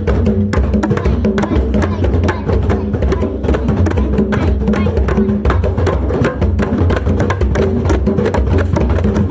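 Many hand drums played together in a drum circle: dense, overlapping strikes keeping a steady rhythm.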